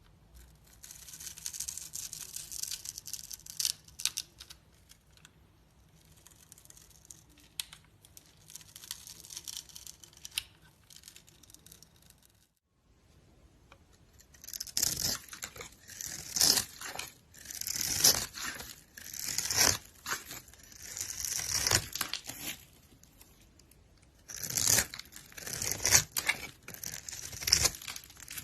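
Blade cutting and scraping through a bar of soap with crisp, papery strokes. After a short break about twelve seconds in, the strokes come louder, about one every second and a half.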